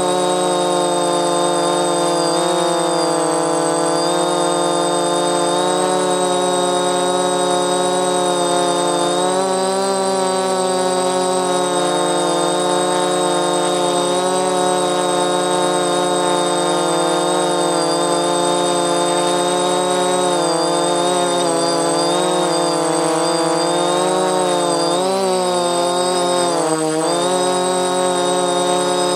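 DJI F450 quadcopter's brushless motors and 10-inch propellers buzzing in flight, heard close up from the camcorder strapped to the frame, with several pitches sliding up and down together as the throttle changes and a steady high tone above. The motors are not yet balanced, the quad is somewhat overweight for 10-inch props on a 3S battery, and one motor bearing may need replacing.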